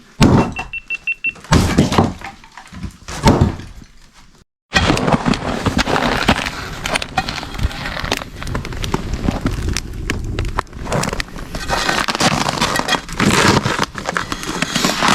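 Wood fire crackling and snapping, a dense run of sharp pops. Before it come a few separate knocks and clicks, and a moment of silence at a cut.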